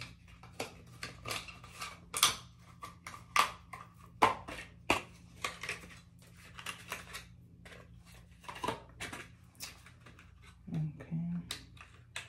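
Irregular clicks and crinkles of a clear plastic false-eyelash case being opened and handled, with a short low hum from a voice near the end.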